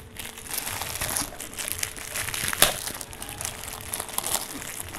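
Clear plastic bag crinkling and rustling in irregular bursts as it is pulled off a small toy box, with a sharper crackle about two and a half seconds in.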